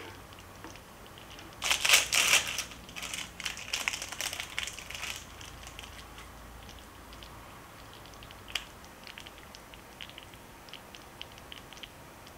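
Plastic wrapper crinkling for about three seconds, as a slice of cheese is unwrapped for the soup. Then a sharp tap and faint scattered clicks of a wooden spoon stirring thick soup in an enamelled cast-iron pot.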